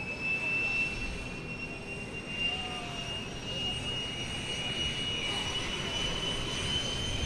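Airbus A350-1000's Rolls-Royce Trent XWB turbofans running up for takeoff: a steady jet rumble with a high whine that slowly rises in pitch as the aircraft begins its takeoff roll.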